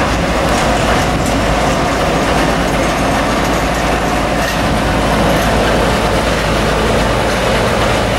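Cruise ship's engine running steadily as the ship manoeuvres alongside the quay to moor: a low hum under an even, constant noise.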